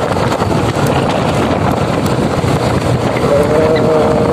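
Wind buffeting the microphone of a moving motorcycle, with the engine running underneath. Near the end a short steady tone sounds for about a second.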